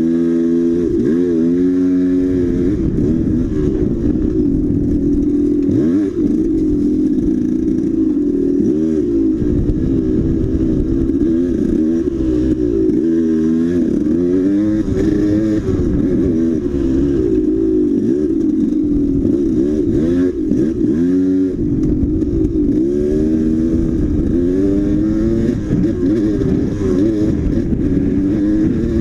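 Dirt bike engine being ridden hard off-road, its pitch rising and falling over and over every second or two as the throttle opens and closes and it shifts gears.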